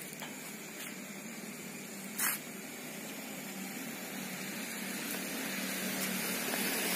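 Motorcycle engine drawing nearer: a steady low hum and noise grow gradually louder, with a short hiss about two seconds in.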